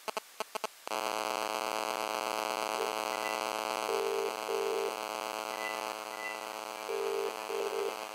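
Phone call audio through a small Anker Bluetooth speaker: the last few quick dialing beeps, then a steady buzzing hum as the line opens. Over the hum, the British ringing tone, two short rings, comes twice about three seconds apart, as the call rings out at home.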